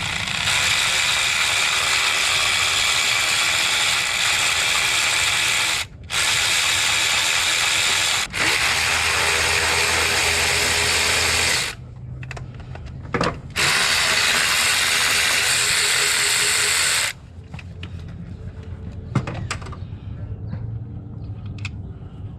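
Cordless power tool running in four long trigger pulls of several seconds each, separated by brief stops, while the distributor cap bolts are being undone. Small clicks of handling come between the runs.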